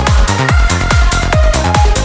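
Electronic psytrance track at 143 beats a minute: a steady four-on-the-floor kick drum with a rolling bass line filling the gaps between kicks, and high synth notes held above.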